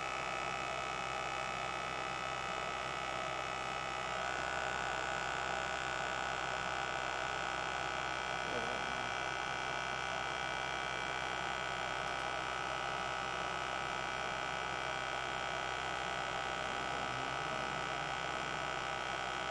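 Steady electrical machine hum with several high whining tones held at fixed pitch; the higher tones shift slightly about four seconds in.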